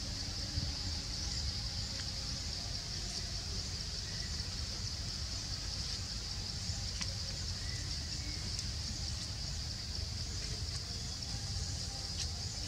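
Outdoor forest ambience: a steady high-pitched drone over a low rumble, with a few faint ticks.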